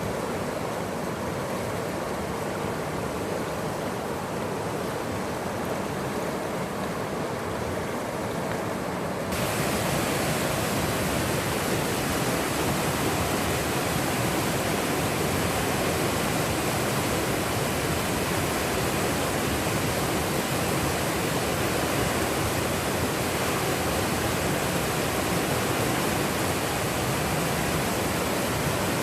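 Rushing water, a steady even hiss with no breaks. About nine seconds in it cuts abruptly to a louder, brighter, hissier rush that then holds steady.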